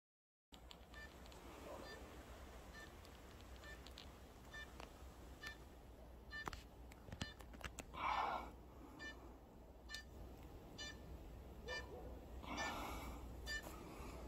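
Faint short electronic beeps repeating every half second or so from the drone caught high in the tree, the beeping a crashed or lost drone gives to help find it. Two louder brief noises break in about eight and twelve seconds in.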